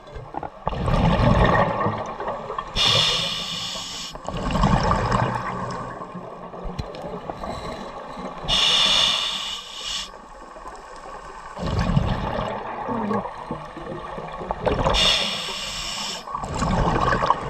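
Scuba diver breathing through a regulator underwater: a hissing inhale three times, about every six seconds, each followed by a rumbling burst of exhaled bubbles.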